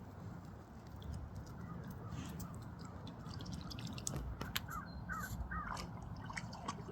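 A quick run of four short animal calls, about four and a half to five and a half seconds in, over a low steady rumble.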